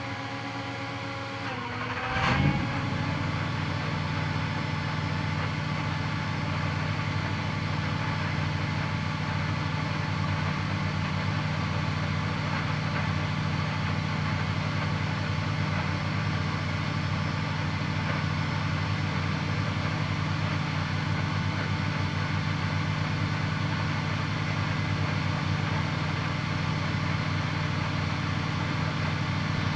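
Mercedes-AMG GT3's naturally aspirated V8, heard onboard, running steadily at idle with no revving. Before it settles there is a whine that dips slightly in pitch and a sudden loud thump about two seconds in.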